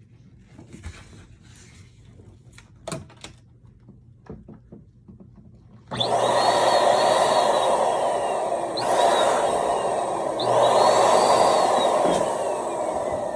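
Light handling noises, then about six seconds in an electric balloon pump switches on and runs with a loud rush of air, inflating a balloon, with whistling tones that slide up and down over it.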